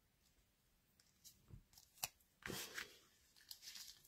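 Faint handling sounds of sheer ribbon and cardstock being arranged by hand: a sharp click about two seconds in, then brief scratchy rustles.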